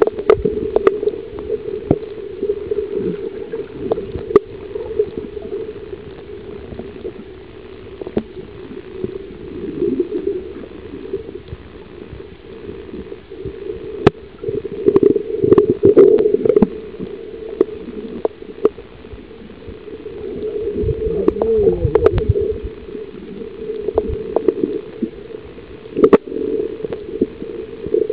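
Muffled underwater sound of moving water: a steady low rush, with louder bursts of gurgling bubbles about halfway through and again a few seconds later, and scattered sharp clicks.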